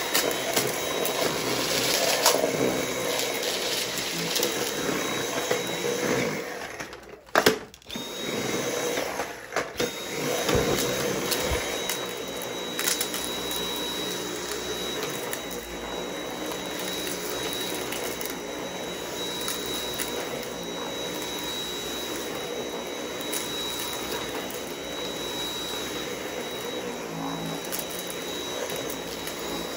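Dyson V8 cordless stick vacuum running with a steady high motor whine, its soft roller head on a rug, with crackling of debris being sucked up. The motor cuts out briefly twice, about seven and about ten seconds in, and spins back up each time.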